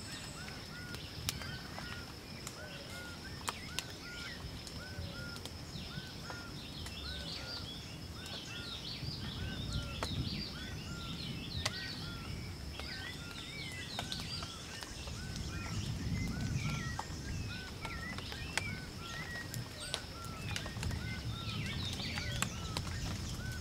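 Rainforest birdsong. One bird repeats a short arched call steadily, a little more than once a second, while other birds chirp higher and more busily through the middle. A steady high whine and a low rumble run underneath.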